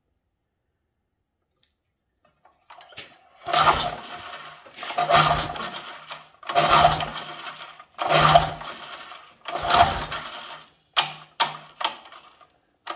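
Small engine on a Troy-Bilt sickle mower being pull-started by its recoil rope: five hard pulls about one and a half seconds apart, starting about three seconds in, the engine cranking over each time without catching, then four quicker, shorter tugs near the end.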